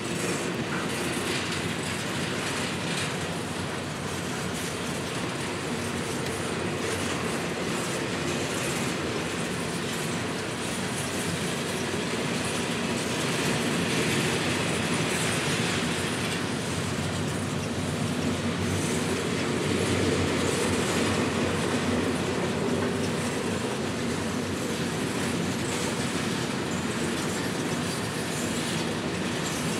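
Intermodal freight train's well cars rolling past steadily, steel wheels running over the rail joints.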